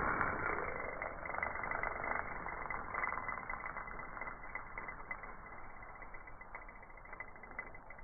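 Line running off a spinning reel's spool just after a cast: a hissing rush with faint ticks that fades gradually.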